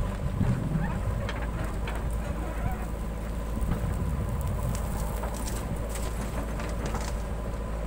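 JCB 3DX backhoe loader's diesel engine running steadily under load as the backhoe digs and lifts. Loose earth patters and crackles as the full bucket rises and tips soil into a tractor trolley, mostly in the middle and latter part.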